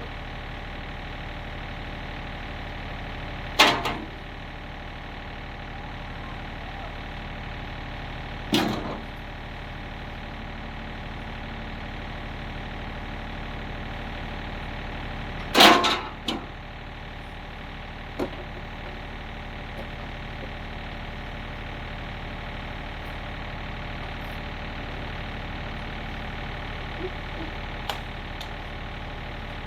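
Small gasoline pressure washer engine running steadily, with three loud knocks spread several seconds apart, the third the loudest, and a few lighter clicks later.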